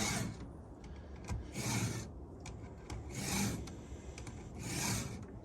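Stihl 2-in-1 file guide's files rasping across chainsaw chain cutters during hand sharpening: four separate file strokes, about one every second and a half.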